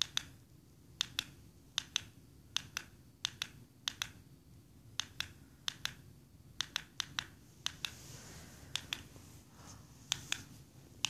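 Irregular run of small sharp clicks, two or three a second, like fingers pressing buttons or tapping a hard surface.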